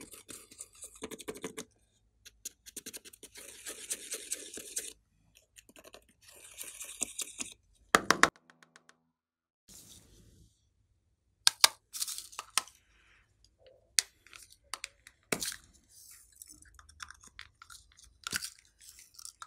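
Pressed eyeshadow powder being scraped out of a makeup palette's pans with a plastic stick, in short rasping bursts of scratching. Later come scattered sharp clicks and taps of small plastic items being handled.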